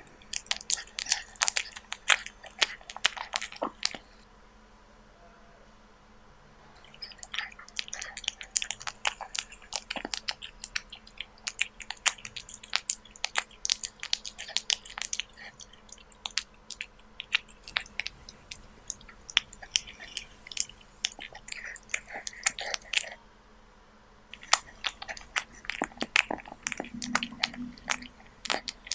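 Kitten chewing raw beef: quick wet smacking and crunching clicks in three long runs, with short pauses about four seconds in and again near the end.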